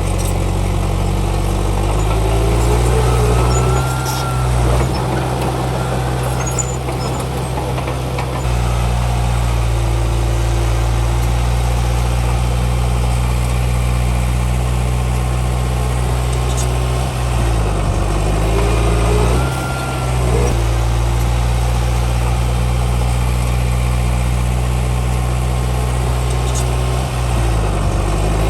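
Komatsu D31P bulldozer's diesel engine running under load, its pitch dipping and recovering several times as the work changes. Short squealing glides come now and then.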